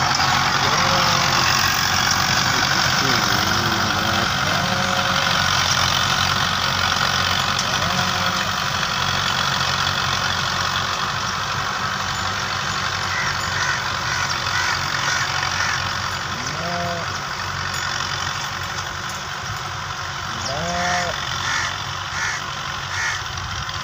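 Fiat 640 tractors' diesel engines running steadily under load while pulling cultivators through dry soil.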